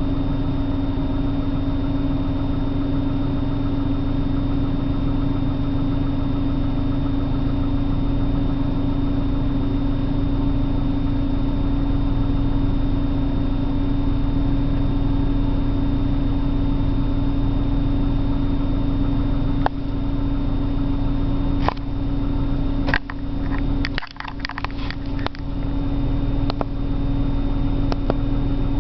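1997 BMW 328i's straight-six engine idling after a cold start, a steady even drone with the rough idle its owner is showing. About three quarters of the way through, a short cluster of clicks and knocks.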